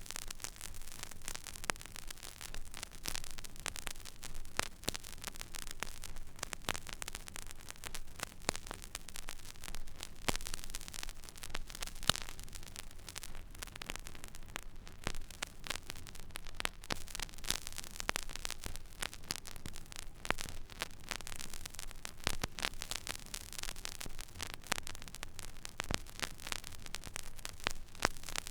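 Stylus riding an empty vinyl record groove: steady surface hiss with dense random crackles and pops over a low hum.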